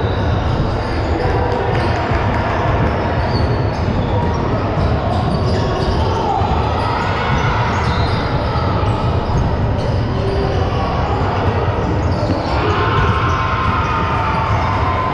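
Basketball game sound in a gym: a ball bouncing on the court over a steady din of crowd voices.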